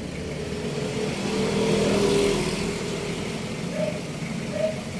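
A road vehicle passing by, its engine and tyre noise swelling to a peak about two seconds in and then fading.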